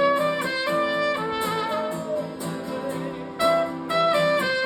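Live band music in an instrumental break: a brass horn plays a melody of held notes over guitar chords.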